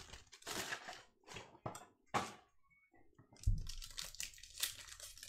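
Foil wrapper of a 2021 Contenders football card pack crinkling and tearing as hands work it open, in a string of short crackles, with a low thump about three and a half seconds in.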